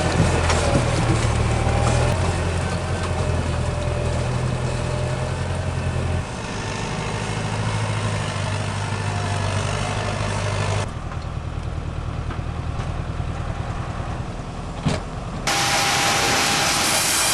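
Heavy machinery engines running with a steady low hum, changing with cuts between clips; about fifteen seconds in, a single knock, then a different machine starts with a steady thin whine.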